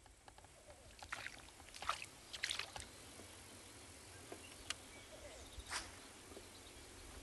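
Small boat on calm water: faint scattered knocks and water slaps against the hull, a cluster of them about one to three seconds in, over a low steady rumble.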